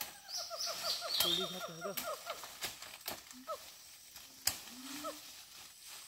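Several forest birds calling together. One gives a fast run of short falling notes, about eight a second, over the first two seconds, over high stepped whistles, while a lower hooting call rises and falls a few times. A few sharp clicks or knocks cut in, the loudest about four and a half seconds in.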